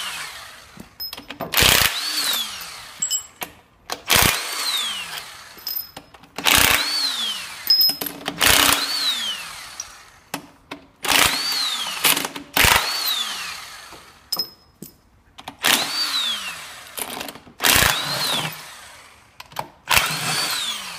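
Handheld power driver (torque gun) undoing the front-cover bolts of a rotary lobe pump: about nine short, loud bursts roughly every two seconds, each followed by a falling whine as the motor spins down, with small clicks of bolts and metal in between.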